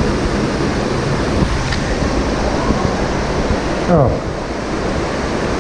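Steady rushing hiss of falling water, most likely rain. About four seconds in, a short voice sound falls steeply in pitch.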